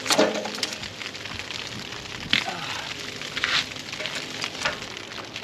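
A metal scoop scraping and clinking through burning charcoal in a small kettle grill as hot coals are gathered up, with about five separate scrapes spread over a few seconds, the first the loudest.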